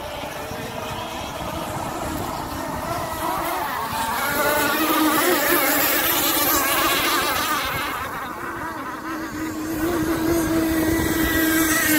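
Zenoah two-stroke gas engines of RC racing catamarans running at high revs as the boats speed across the water, the engine note wavering in pitch. The sound swells as a boat passes about four seconds in and again near the end.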